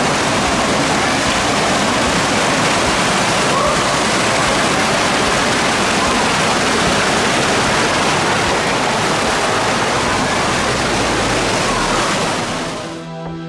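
A creek rushing and splashing steadily over rocks and small cascades. Near the end the water sound fades out and soft music comes in.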